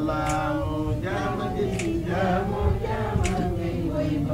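A man chanting an unaccompanied Muslim devotional song in long, drawn-out melodic phrases.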